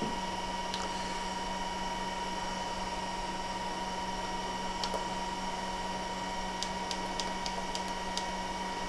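Steady hum and hiss of running electronic bench equipment, with a constant whine of several fixed tones. Faint clicks of the satellite modem's front-panel keypad buttons being pressed, a cluster of them near the end.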